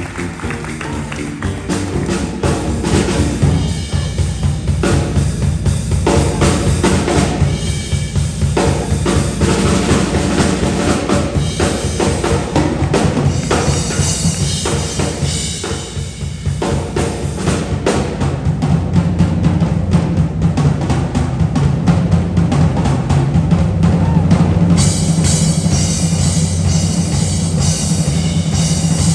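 Live band music led by a drum kit, with busy kick drum and snare over low bass notes; the cymbals get louder near the end.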